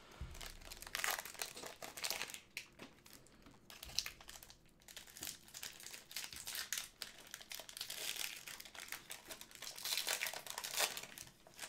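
Wrapper of a basketball trading card pack crinkling irregularly as the pack is handled and opened.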